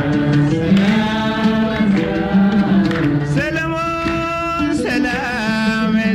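A male voice singing an ornamented melody over instrumental accompaniment, holding one long note about halfway through.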